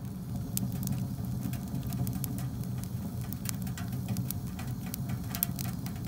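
Birch logs burning in a Grizzly Bushcraft wood-burning stove: irregular sharp crackles and pops over a steady low rumble of the fire.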